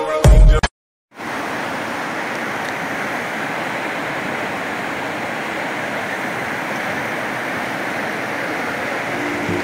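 A fast river rushing over rocks and rapids: a steady, even rush of water that starts about a second in, after a brief burst of music cut off by a short silence. Faint music comes back near the end.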